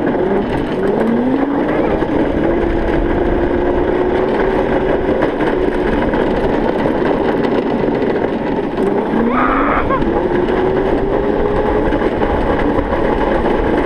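Electric motor of a Razor go-kart whining as it pulls away, the whine rising in pitch then holding steady, and rising again about nine seconds in as it speeds up, over steady wind and road noise. A brief high squeak about nine and a half seconds in.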